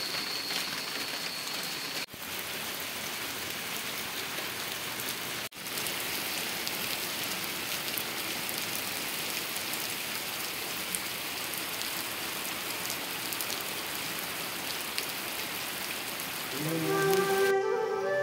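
Steady rain falling on wet stone paving, an even hiss. Near the end, background flute music fades in over it.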